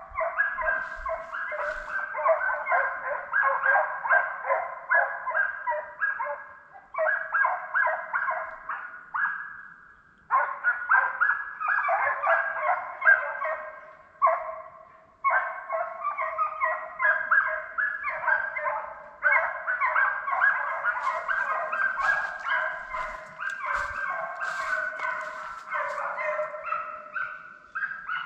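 A pack of hunting hounds baying on a running deer chase. Several voices overlap in quick runs of calls, several a second, breaking off briefly about ten and fifteen seconds in.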